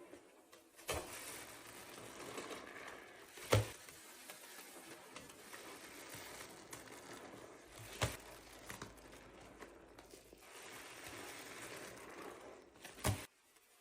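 Cleaning noises: an ongoing rubbing, rustling sound with four sharp knocks, about one, three and a half, eight and thirteen seconds in, the second one the loudest.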